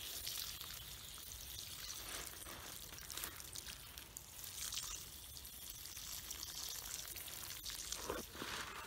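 Water from a hose's metal watering wand pouring steadily into a muddy planting hole in plastic mulch, filling it around a transplanted pepper seedling.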